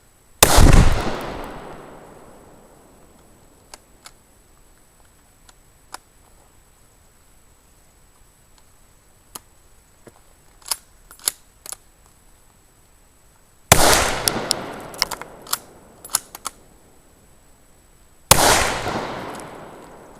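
Three rifle shots: one about half a second in, then two close together near the end, each followed by a long echoing tail. A few short sharp clicks come between the shots.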